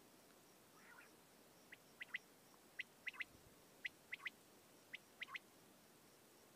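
Quail calling in a wheat field, giving the common quail's three-note phrase four times, about once a second. Each phrase is a quick series of short, sharp notes, faint and clear over a quiet background.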